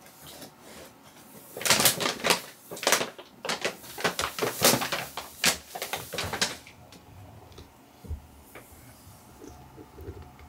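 Brown paper bag crinkling and rustling in quick, sharp bursts for about five seconds as a cat moves and turns around inside it. The rustling stops once the cat has settled curled up in the bag.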